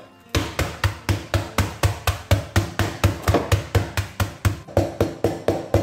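Wooden rolling pin pounding digestive biscuits in a plastic zip-lock bag on a wooden chopping board. The strikes are rapid and even, about four a second, starting a moment in.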